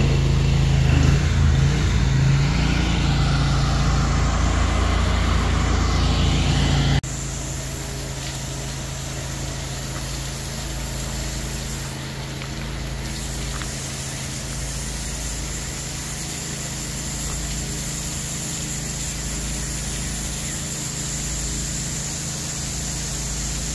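Pressure washer engine running steadily, loud and close for about the first seven seconds, then cut off abruptly. After that a quieter steady engine hum continues under the constant hiss of the pressure washer's water spray hitting the house siding.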